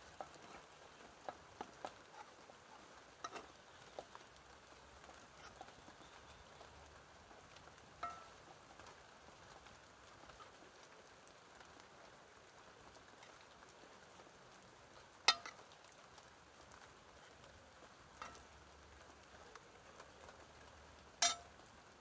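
Soft steady rain, with scattered sharp clicks and knocks, a few with a short metallic ring; the two loudest come about 15 and 21 seconds in.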